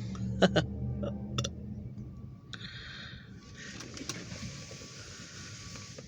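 A low engine rumble fading away over the first two seconds, with a few sharp clicks over it, followed by a steady hiss.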